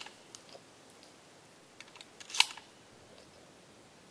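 Metallic clicks from handling a Benelli Super 90 semi-automatic 12-gauge shotgun as it is reloaded. A few light clicks come first, then a short run of clicks and one sharp click about two and a half seconds in.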